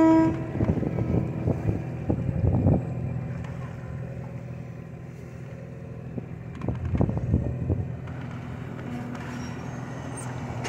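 A diesel locomotive horn on a CSX freight train cuts off just after the start. A steady low engine hum with rumbling follows, broken by scattered bursts of noise.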